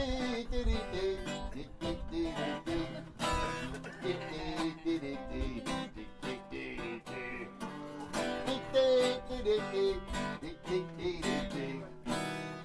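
Acoustic guitar strummed and picked in an instrumental break between sung verses, with a melody line moving over the chords.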